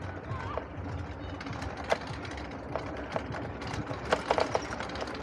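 E-bike riding over a paved path: a steady low rumble of tyres and wind on the microphone, with irregular clacks and rattles from the bike jolting over the path's bumps and joints. The clacks come quicker about four seconds in.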